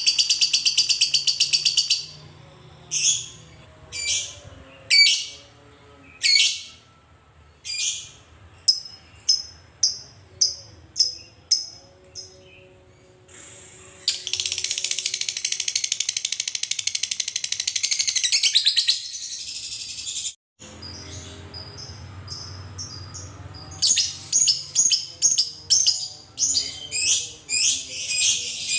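Fischer's lovebird singing its long chattering 'ngekek' song: a dense, rapid high trill at the start and another in the middle, broken up by sharp separate chirps that come about two a second near the end.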